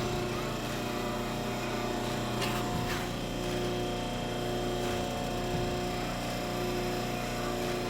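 Steady electrical hum made of several held tones, with a few faint clicks about two and a half and three seconds in.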